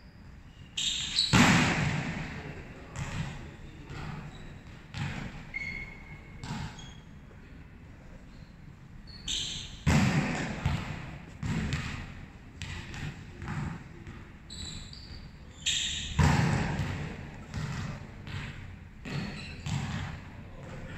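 Volleyball being struck and hitting a hard court floor, a series of thuds that echo in a large hall. Three loud smacks come about a second in, about halfway through, and about three quarters of the way through, with lighter knocks between them.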